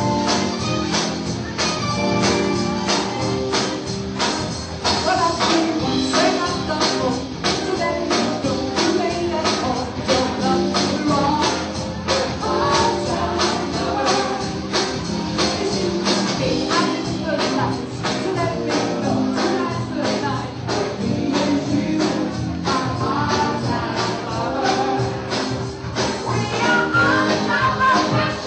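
Live band playing a disco song: a steady, driving beat with tambourine-like percussion and a singing voice over the band.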